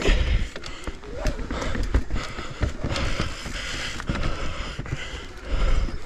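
Full-suspension Commencal mountain bike riding a dirt singletrack: steady tyre and trail noise with frequent knocks, clatters and thumps from the bike over the rough ground.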